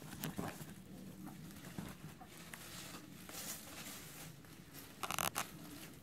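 Chickens scratching and pecking in dry leaves and grass: soft rustling and scattered small scratches, with a louder, brief scraping rustle about five seconds in.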